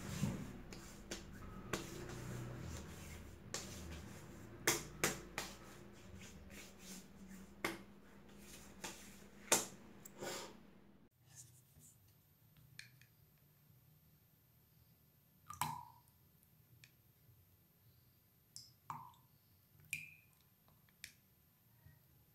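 Scattered small clicks, taps and scrapes of objects being handled over a faint steady hum. About halfway through the hum and background noise drop away abruptly, leaving only sparse clicks and a few short ringing taps.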